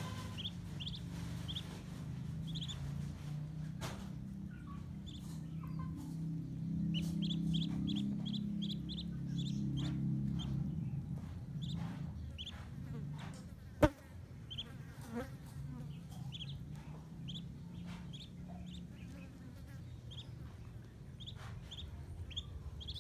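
Muscovy ducklings peeping: many short high peeps, sometimes in quick runs, over a low steady hum. A single sharp knock comes about fourteen seconds in.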